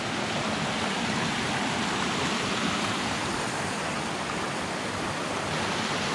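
Mountain creek rushing over rocks in small cascades: a steady, even rush of water.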